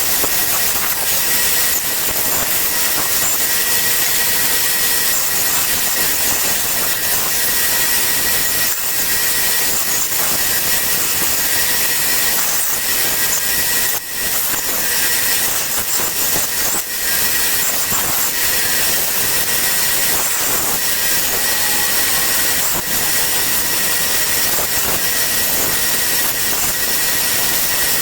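Handheld high-speed power tool running steadily with a thin high whine, cutting through the holding tabs on CNC-cut wooden letters.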